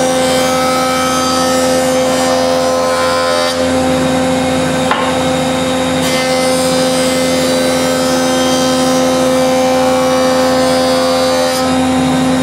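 Delta jointer running with a steady motor hum while a board's edge is fed across the spinning cutterhead and planed. The cutting noise comes and goes with the passes, first in the opening seconds and again from about six seconds in until near the end. This is jointing a rough, slightly bowed edge straight and square to the fence.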